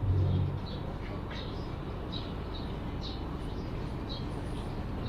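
Railway station ambience: a steady low rumble of the station with small birds chirping over it, short high chirps coming every half second or so. A brief low hum swells at the very start.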